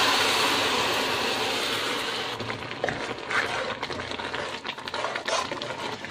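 Hot caramel sizzling and hissing as it hits the boiling milk mixture in a saucepan, loud at first and fading away over about two seconds. Then scattered light clicks and scrapes of a spoon stirring the pan.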